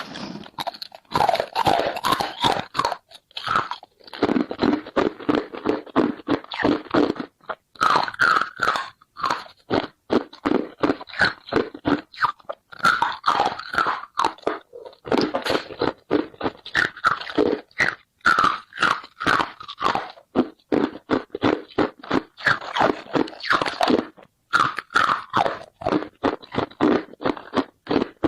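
Ice being bitten and chewed close to the microphone: rapid, crisp crunches several times a second, in runs of a few seconds with short pauses between mouthfuls.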